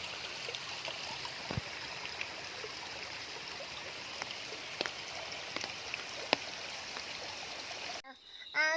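Flood-swollen seasonal creek running fast with a steady rush of water, with scattered light ticks over it; a creek that is normally dry, flowing after days of heavy rain. The rush cuts off suddenly about eight seconds in.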